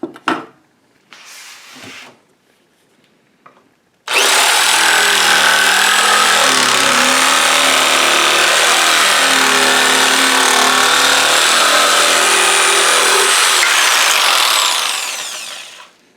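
Hyper Tough jigsaw, its blade held by a set screw in the modified blade clamp, switched on about four seconds in and running loud and steady for about ten seconds, then winding down as it is switched off.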